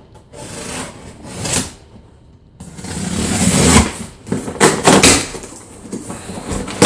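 Cardboard shipping box being opened by hand: flaps and packing material rustling and scraping in several bursts, with a few sharper knocks about two-thirds of the way through.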